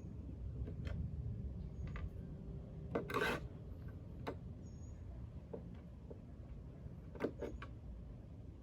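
Small flathead screwdriver working at screws and metal parts: scattered scrapes and clicks, with one longer, louder scrape about three seconds in and two sharp clicks near the end.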